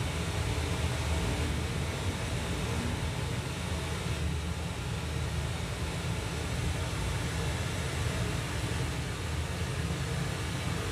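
A Zebronics Juke Bar 9700 soundbar with its subwoofer playing a Dolby Atmos test clip, recorded in the room: a steady deep rumble with a hiss over it, like a vehicle or aircraft sound effect.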